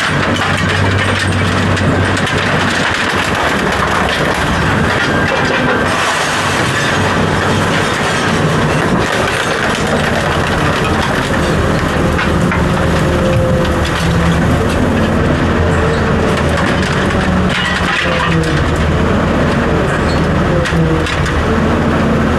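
Refrigerator being pulled apart for scrap: creaking, cracking and scraping of panels and insulation over a steady low mechanical hum.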